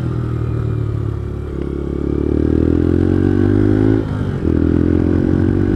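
Sinnis Apache 125 single-cylinder motorcycle engine pulling away and accelerating, its pitch rising gently for a couple of seconds, dipping briefly about four seconds in, then running on steadily.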